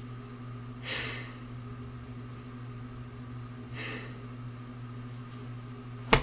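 A man's two heavy exhales through the nose, about a second in and near four seconds, over a steady low electrical hum. A single sharp click near the end is the loudest sound.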